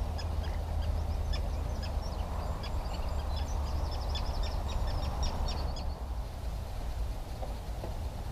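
Wind buffeting the microphone in a steady low rumble, with a small bird's rapid chattering song of short high notes that stops about six seconds in.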